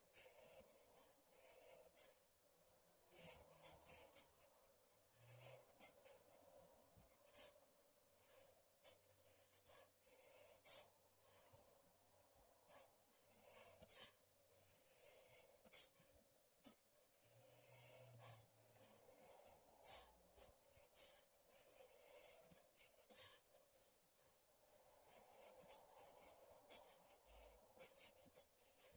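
Faint scratching of a felt-tip marker on paper, in many short, quick strokes with brief pauses between them.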